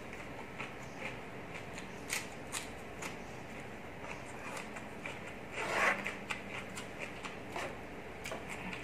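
Close-miked eating sounds: chewing a crunchy raw vegetable, then a metal spoon and fork clicking and stirring through a wet salad on a ceramic plate. There are scattered small clicks and one louder burst about six seconds in.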